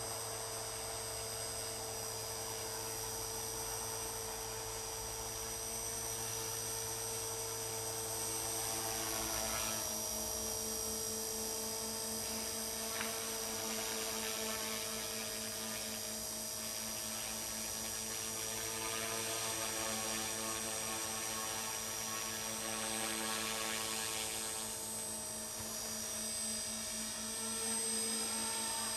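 Align T-Rex 450 Pro electric RC helicopter in flight: a steady whine from its motor and drive gears together with the buzz of the rotor, the pitch shifting slightly as it manoeuvres.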